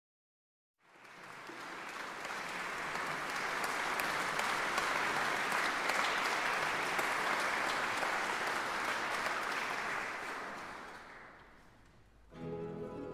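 Audience applauding for about ten seconds, then dying away. Near the end a mandolin orchestra starts playing with plucked mandolins and guitars.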